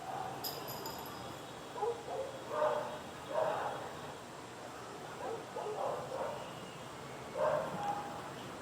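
A dog barking, a string of short barks with pauses between them, over steady city background noise.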